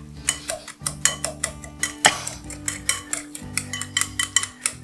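A utensil clicking and scraping against a glass mixing bowl in quick, irregular taps as cut strawberries are stirred and mashed.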